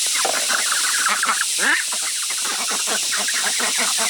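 A crowd of poultry calling at once, a dense overlapping chatter of short clucks and calls.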